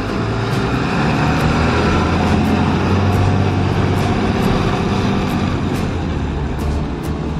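School bus engine running as the bus pulls away from the stop, a low rumble that swells over the first few seconds and then eases off as it drives away.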